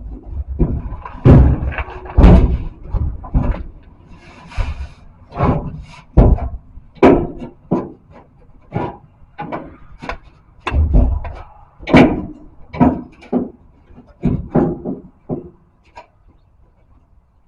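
A run of irregular knocks, bumps and clunks, some dull and heavy, some sharper, a dozen or so loud ones, as parts are handled and shifted during hands-on work.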